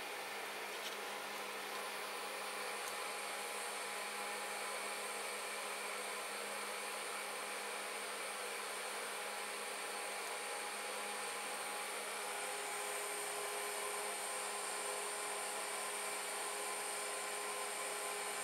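A small electric blower or fan motor running steadily with an even whirring hiss and a faint hum, slightly louder in the second half.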